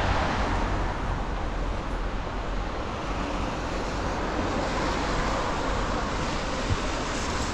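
Steady city street noise in the rain: an even hiss of rain and wet-road traffic over a low rumble, with one short tick near the end.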